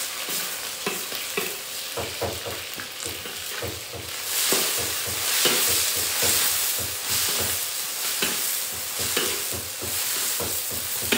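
Food stir-frying in a wok. A steady sizzle runs throughout, and a spatula scrapes and knocks against the pan again and again. The sizzle grows louder about four and a half seconds in.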